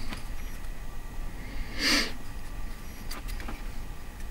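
A single short sniff or breath about two seconds in, over a low steady background hum, with a couple of faint ticks later on.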